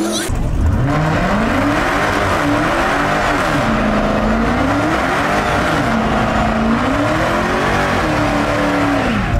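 A car drifting: its engine revs up and down every second or two over continuous tyre squeal.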